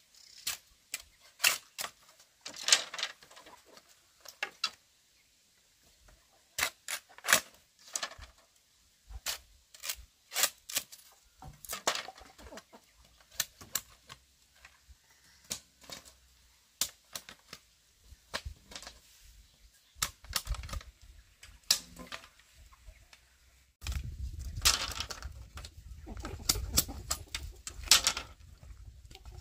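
Irregular sharp knocks and taps, some in quick pairs, as of hand work striking something hard. About 24 seconds in, a low rumble sets in underneath.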